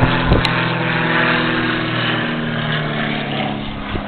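Small model airplane engine running steadily at a constant, slightly shifting pitch, with a couple of sharp clicks just after the start.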